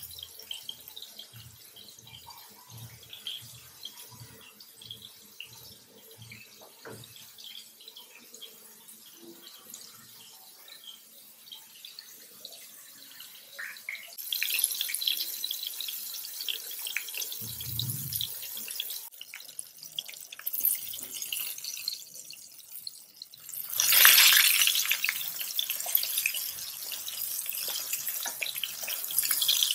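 Rice-flour-coated bombil (Bombay duck) fillets frying in hot oil in a pan. The oil begins to sizzle about halfway through, and there is a louder surge of sizzling about three-quarters of the way in as the fish are turned or more go into the pan.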